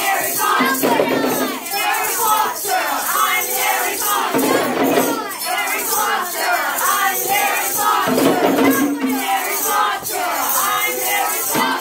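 A class of children chanting layered spoken-sung ostinatos together, with tambourines, hand drums and egg shakers playing along in rhythm.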